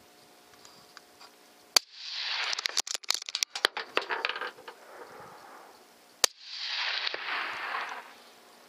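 Two shots from a Remington Model 700 rifle in .243 Winchester, about four and a half seconds apart. Each is a sharp crack followed by a rushing tail lasting a second or two, with a quick run of clicks after the first shot.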